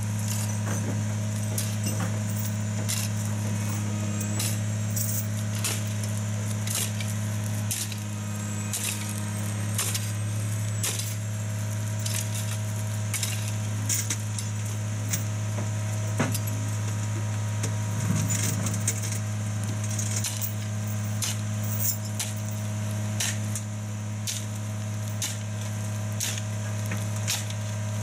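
Tigercat tracked harvester's diesel engine running steadily at a constant pitch as the machine crawls onto a low-loader trailer, with frequent sharp metallic clanks of its steel tracks on the ramps and trailer deck.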